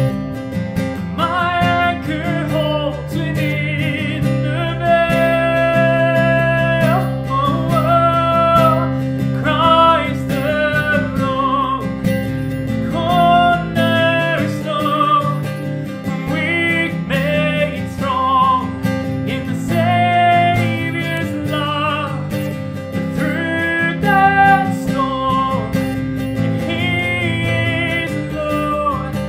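A man sings a worship song in a clear, sustained voice over strummed guitar accompaniment.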